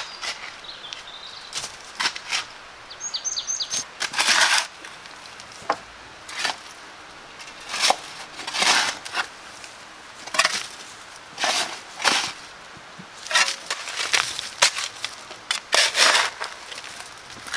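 Shovel digging into loose soil and tossing it, a gritty scrape-and-shush stroke about every second or two. A small bird chirps briefly a few times in the first four seconds.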